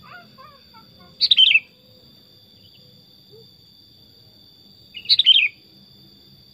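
Sooty-headed bulbul (kutilang) singing two short phrases about four seconds apart, each a quick run of falling notes.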